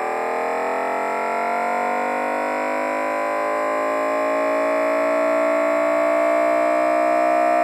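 Simulated Dodge Viper V10 engine running an odd-fire, bank-by-bank firing order (1 5 9 7 3 6 10 8 4 2: all five right-bank cylinders, then all five left). It revs steadily upward with a slowly rising pitch and grows a little louder.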